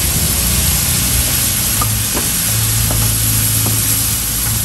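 Yellow noodles frying in a hot wok: a steady sizzle, with a few light taps and scrapes of the metal spatula against the wok, over a steady low hum.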